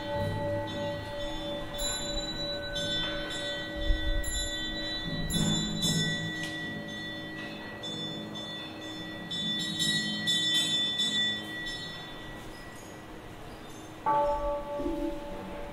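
Buddhist ceremonial bowl bells struck several times and left ringing, their long steady tones slowly fading, with a fresh strike near the end.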